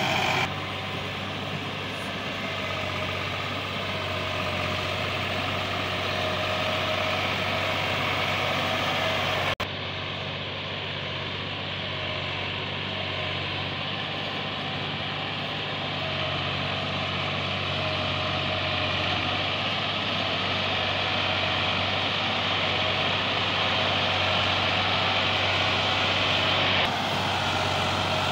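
Massey Ferguson 260 tractor's three-cylinder diesel engine running steadily while hauling a heavily loaded sugarcane trolley, with a short click about a third of the way in.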